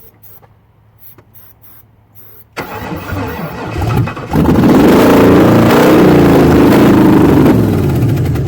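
Swapped LS V8 engine being cranked by the starter and catching about four seconds in, then running loudly with its speed rising and falling for about four seconds before it starts to die away near the end. A short test start with the fuel system not yet hooked up.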